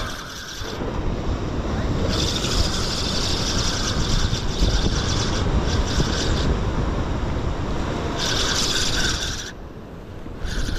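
Wind buffeting the microphone over the rush of waves breaking on rocks, dipping in loudness for about a second near the end.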